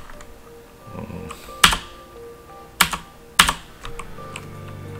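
A few single keystrokes on a computer keyboard, sharp separate clacks spaced about a second apart, over faint steady tones.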